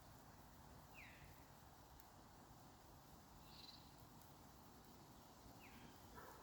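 Near silence with a few faint, short bird calls: a quick falling chirp about a second in and another near the end, with a brief higher call midway.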